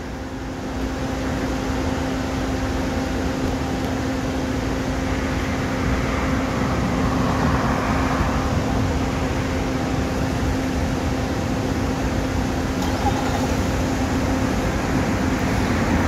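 Street traffic: a steady hum holding one low pitch, with cars passing by. One car is loudest around the middle and another comes in near the end.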